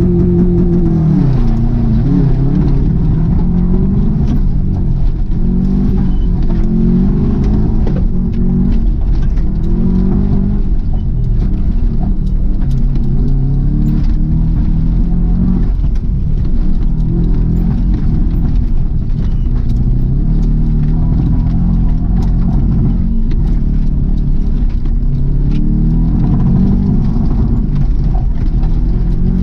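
Subaru WRX's turbocharged flat-four engine revving hard under load on a rallycross run, its pitch climbing and dropping again and again through gear changes and lifts, with scattered sharp ticks over the engine note.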